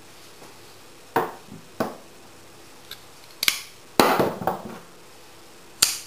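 Folding knives knocking and clattering against a wooden tabletop as they are handled and set down: about half a dozen sharp clicks and knocks, with a longer clatter about four seconds in.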